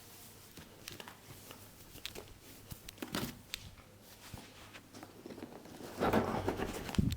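Hands massaging a head: rubbing and rustling of hair and skin with scattered light taps and clicks, and a louder stretch of rubbing near the end.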